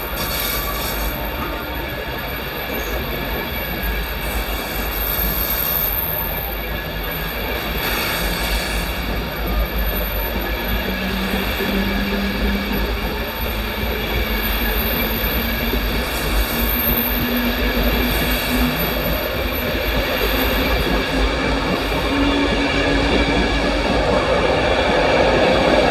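Passenger coaches of an LNER InterCity 225 train rolling past, a steady rumble of wheels on rail. From about halfway a hum slowly rises in pitch, and the sound grows louder near the end as the Class 91 electric locomotive propelling the train at the rear comes closer.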